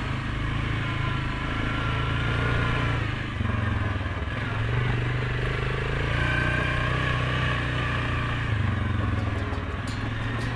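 Suzuki King Quad 750 ATV's single-cylinder four-stroke engine running as it is ridden along a dirt trail, its pitch rising and falling with the throttle. A run of light clicks comes near the end.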